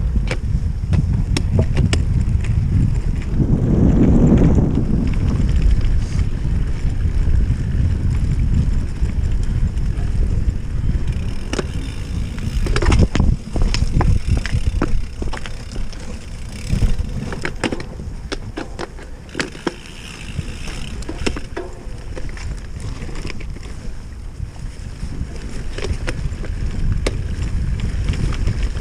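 Wind buffeting a handlebar-mounted camera's microphone and the low rumble of a mountain bike's tyres on a bumpy grass course, with a clatter of knocks and rattles from the bike jolting over rough ground in the middle stretch.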